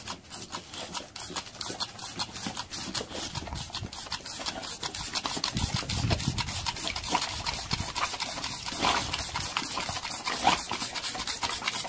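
Boxer dog snapping and chomping its jaws rapidly at a green object held out to it, a fast, irregular run of wet clicks, with a few low grunts from the dog partway through.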